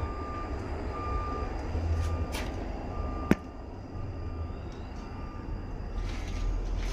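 Rumbling handling noise from a handheld camera moving through empty rooms, with a faint high tone that comes and goes like a beep and one sharp click about three seconds in.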